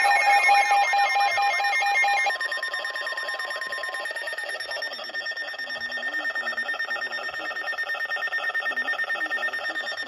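Several NOAA weather radios sound their alert alarms at once for a Special Marine Warning. A pulsing two-tone beep stops about two seconds in, a steady warning tone cuts off about four seconds in, and rapid repeated beeping carries on.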